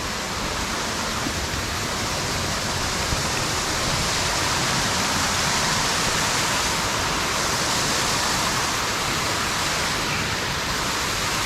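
Steady rushing of creek water flowing over rocks, running high after heavy rain.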